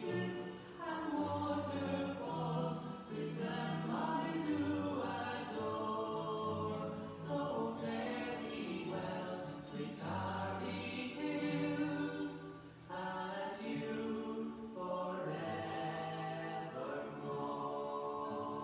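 Choir singing a slow piece in long held chords, several voices at once, with low notes coming and going beneath.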